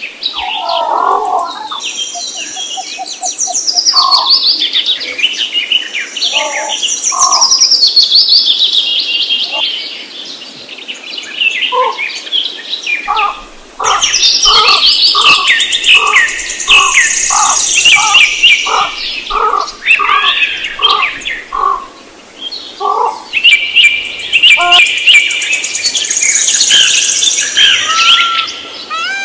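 Several songbirds singing and chirping over one another, with high trills and quick whistled phrases. Through the middle a lower note repeats steadily about twice a second.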